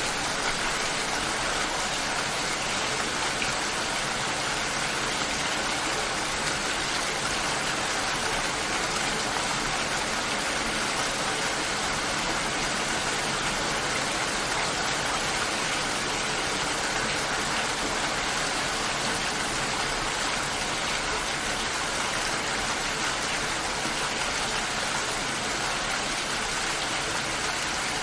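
Steady rainfall, an even hiss with no breaks or changes.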